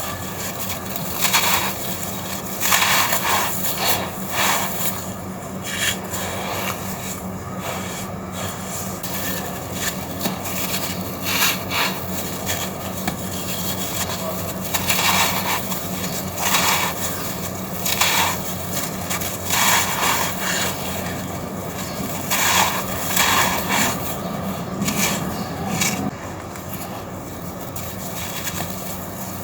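Dry red sand-and-cement chunks being crumbled and rubbed. Continuous gritty grinding, with crisper crunches every second or two.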